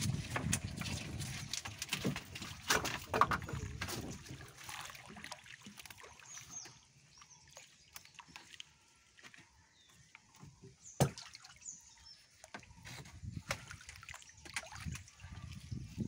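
Water sloshing and splashing against a wooden dugout canoe as a gill net is hauled and paid out over the side, with scattered clicks and knocks of the net and wood. Busiest in the first few seconds, quieter in the middle, with one sharp knock a little past the middle.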